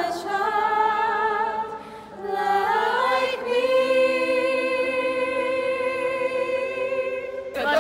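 A choir singing sustained chords with vibrato, settling into one long held chord that stops just before the end.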